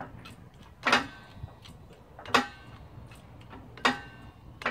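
Hydraulic bottle jack on a shop press being pumped by its handle bar, with a sharp metallic clack at each stroke, roughly one every one and a half seconds. The press is slowly forcing a bearing and oil seal out of a scooter transmission case.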